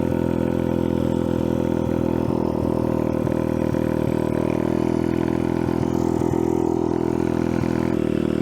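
Icebear Champion 125cc mini bike's single-cylinder four-stroke engine running at a steady pitch while riding on dirt, with a few light knocks from the bumpy ground.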